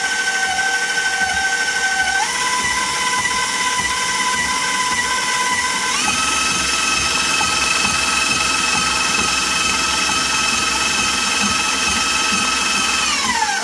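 Electric stand mixer's motor whining as its flat beater creams butter, sugar and vanilla. The pitch steps up twice as the speed is raised, about two and six seconds in, then slides down near the end as the mixer slows.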